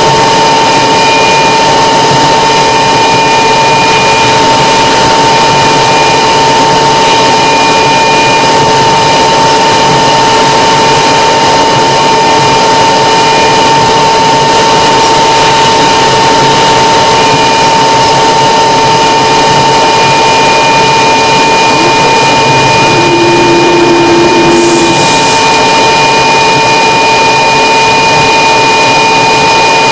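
Light aircraft's engine and propeller heard from inside the cockpit, running loud and steady with a constant whine over a rushing noise as the plane rolls along the runway.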